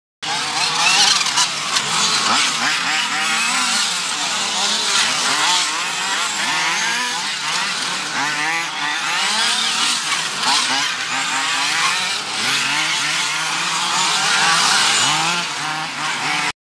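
Several 1:8 scale nitro RC buggy engines racing, each one revving up and dropping back over and over, their buzzing pitches overlapping.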